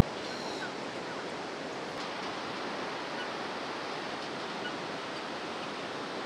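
Rushing river water: a steady, even hiss with no changes.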